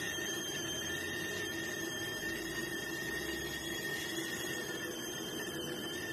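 Stainless steel whistling kettle whistling steadily at the boil: one high, even tone with fainter overtones above it, the signal that the water has boiled.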